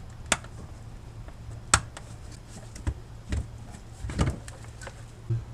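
Hand work on engine parts: a few sharp metallic clicks and knocks of parts and tools being handled, the loudest about a third of a second in and just before two seconds, over a steady low hum.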